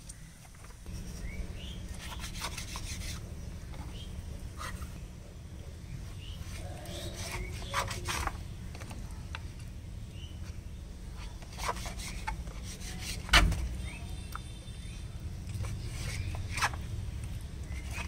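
Kitchen knife cutting raw goat testicles on a wooden chopping board: soft rubbing and scraping of blade and flesh, with scattered clicks of the blade on the board. The loudest is a sharp knock about two-thirds of the way in.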